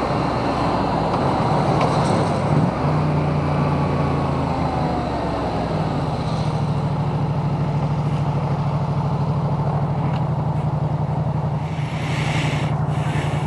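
Yamaha MT-07 parallel-twin motorcycle engine slowing, its pitch falling over the first few seconds, then idling steadily while stopped, heard through a microphone inside a full-face helmet.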